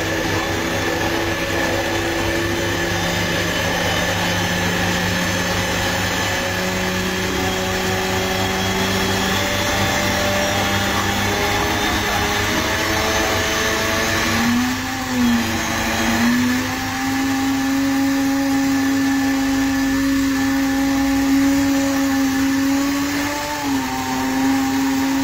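Countertop blender motor running steadily while oil is streamed in to emulsify egg, mustard and herbs into a thick mayonnaise-style sauce. Its hum steps up in pitch about six seconds in, then jumps higher with a brief wobble about fifteen seconds in and holds there.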